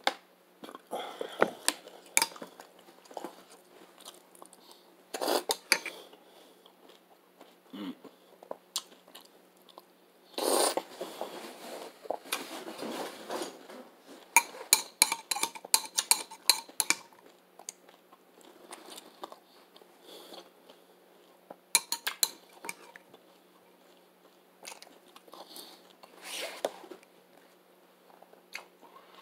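Someone eating crunchy cereal with almonds: a spoon clinking and scraping in a ceramic bowl, with crunchy chewing, in irregular bursts and a longer scraping stretch about halfway through.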